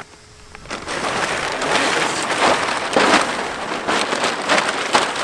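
A camouflage tarp being shaken out and unfolded by hand, its fabric rustling and crackling loudly, with a few sharper snaps. It starts about a second in.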